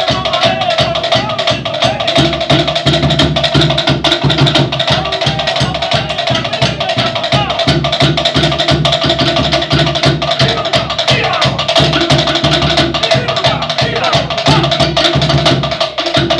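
Cook Islands drum ensemble playing a fast, steady beat on a large skin drum and wooden log drums, with a short break near the end.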